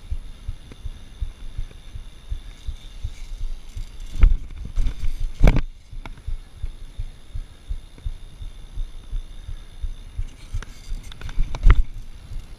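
A BMX bike being ridden over concrete, heard through an action camera: a constant low, irregular thumping rumble, with three sharp knocks from the bike, about four seconds in, about five and a half seconds in, and near the end.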